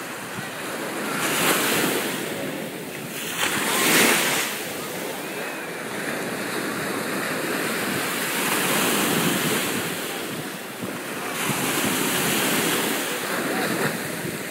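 Small waves breaking and washing up a sandy shore in shallow surf, swelling in several surges, the loudest about four seconds in, with wind buffeting the microphone.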